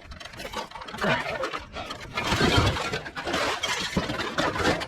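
Scrap metal clattering and rattling as pieces are handled and tossed, a dense run of metal hits that grows louder after about a second and is loudest past the middle.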